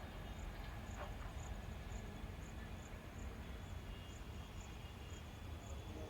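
Faint insect chirping, short high pulses evenly spaced about twice a second, over a steady low rumble.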